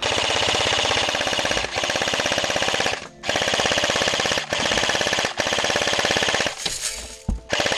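Airsoft electric M4 rifle (AEG) firing long full-auto bursts: a rapid, even clatter of shots, about five long bursts broken by brief pauses, then a couple of shorter bursts near the end.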